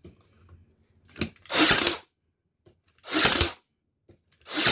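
Fujiwara 20V cordless battery nailer, a piston-type model, firing 430 U-staples into a wood strip in normal mode: three shots about a second and a half apart, each a burst lasting about half a second.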